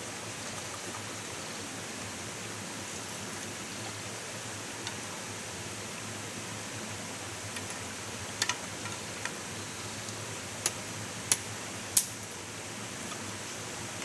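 Steady hiss of running or falling water. A few sharp clicks cut through it in the second half, the last three about half a second apart near the end.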